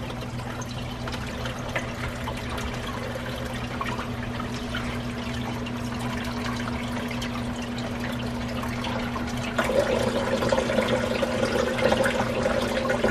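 Reef aquarium sump running just after start-up: water splashing and fizzing with micro-bubbles over a steady low hum from the return pump and the NYOS Quantum 160 protein skimmer. About ten seconds in, the auto top-off pump kicks in with a louder, higher hum, set off because the skimmer has drawn down the water in the return chamber.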